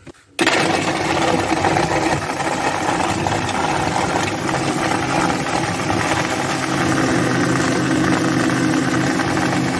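Electric mixer grinder switched on about half a second in and running steadily, blending curd, ice and sugar into lassi.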